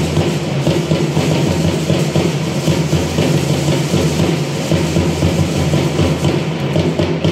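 Drum music for a matachines dance: a steady, fast drumbeat that runs on without a break.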